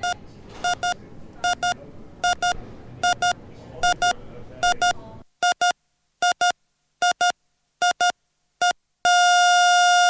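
Hospital patient heart monitor beeping in double beeps, about one pair every 0.8 seconds, over a low room murmur that drops out about halfway. Near the end the beeping gives way to a continuous steady tone, the flatline alarm that signals the heart has stopped.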